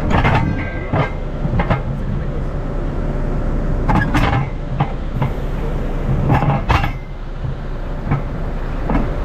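Heavy diesel engine running steadily with a low rumble, over which come scattered sharp metallic knocks and clanks, the loudest about four seconds in and again around six and a half to seven seconds.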